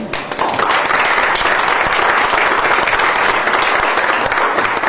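Audience applauding: many hands clapping together, swelling up within the first half-second and then holding steady.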